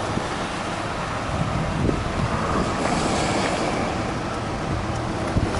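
Wind buffeting the microphone: a steady rushing noise with a low rumble.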